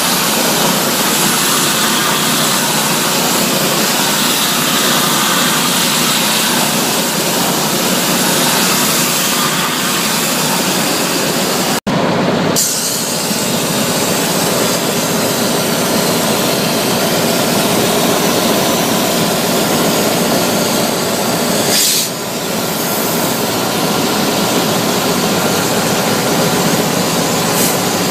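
Loud, steady rushing noise from industrial fin-fan cooler cleaning work, with a split-second break about twelve seconds in and a brief dip about ten seconds later.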